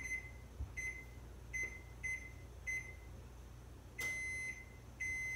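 Oven's electronic control panel beeping at a single steady pitch while its buttons are pressed to lower the oven heat. Short beeps come under a second apart, then longer beeps from about four seconds in.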